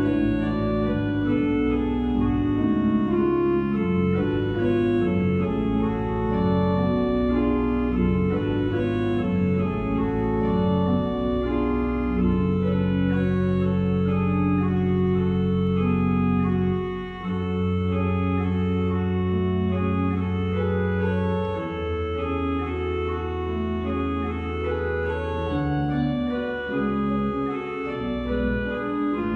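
Eisenbarth pipe organ playing chords on the manuals over pedal bass notes. Partway through, the bass holds a few long sustained notes while the upper voices keep moving.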